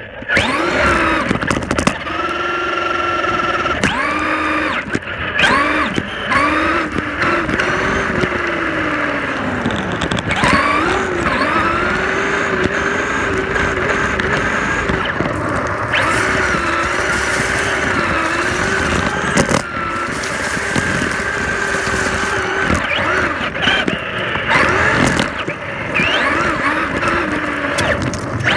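Traxxas Slash RC truck driving, its motor whine rising and falling again and again as the throttle is worked.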